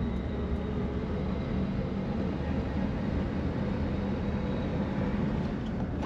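1966 AMC Marlin's engine pulling in first gear, heard from inside the cabin: a steady low drone with road noise.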